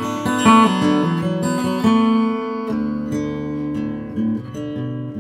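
Intro music: acoustic guitar playing a run of plucked notes.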